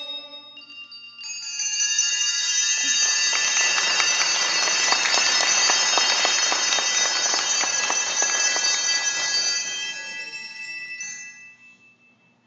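Many handbells ringing together in a long final chord, loud and sustained, with a dense clatter of strikes underneath. The sound dies away over the last couple of seconds.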